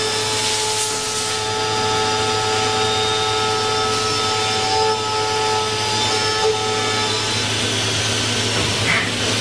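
CNC machine running steadily, with a mix of constant whining tones over a low hum and machining noise. A brief hiss comes about half a second in.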